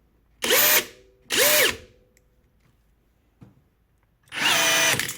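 Brushless motor of a Parkside PBNSG 20-Li A1 cordless rivet gun, run in short bursts that each spin up to a steady whine and wind down: two quick strokes, then two longer ones near the end. The gun is being cycled while a thick steel rivet's mandrel is jammed in its feeding mechanism.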